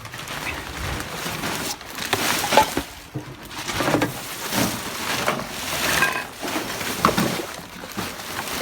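Refuse being handled and dumped: irregular rustling and knocking, coming and going about once a second.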